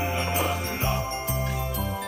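Christmas-style background music with jingle bells over a steady bass line.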